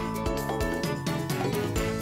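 Instrumental end-credits music with a steady beat.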